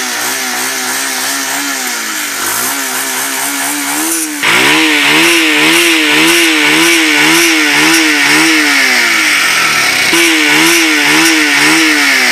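Bajaj Pulsar 180F's single-cylinder engine being revved in quick, even throttle blips. About four seconds in it cuts to a louder, hissier version: the sound with the air-box intake cap under the seat removed.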